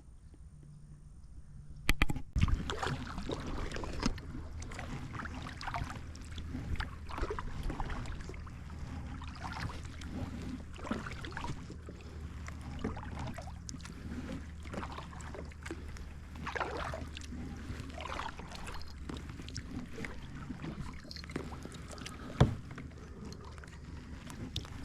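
Kayak paddle strokes dipping and splashing in the water, roughly one every second, over a steady low rumble, with a sharp knock near the end.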